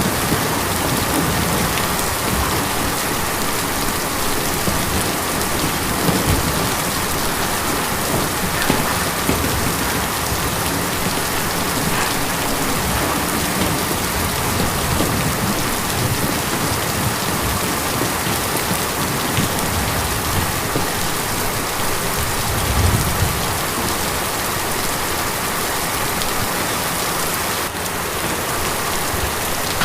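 Steady, heavy rain drumming on a tin roof, with a few brief louder low swells along the way.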